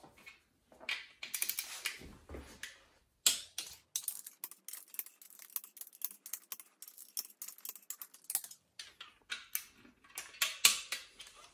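Ratchet head of a torque wrench clicking as the bedplate bolts of an engine block are run down and tightened to torque. The clicks come in scattered groups, with a long fast run of them in the middle.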